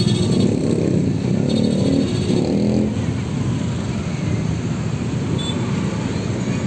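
Road traffic passing close by: vehicle engines and tyres running continuously, louder for the first three seconds or so and then easing slightly.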